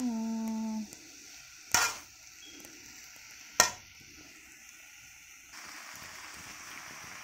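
Pancit noodles with vegetables and chorizo sizzling in a metal wok as they are tossed with metal tongs, with two sharp clanks of the tongs against the wok about two and three and a half seconds in. The sizzle grows a little louder near the end.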